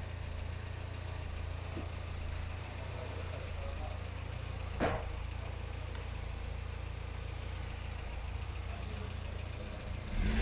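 A steady low engine hum, with one sharp knock about five seconds in.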